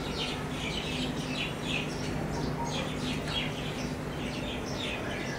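Small birds chirping: a quick, continuous string of short falling chirps, several a second, over a faint steady hum.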